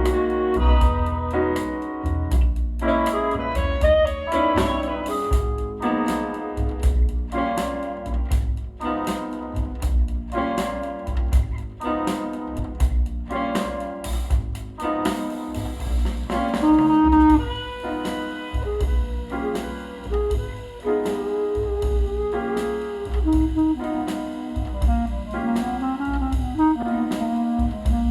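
Small-group jazz with saxophone, piano, bass and drums, played back through a Tektron TK Two 2A3/300B tube amplifier and Cube Audio Jazzon full-range speakers. The crisp drum strokes thin out about halfway through, leaving the horn and piano over the bass.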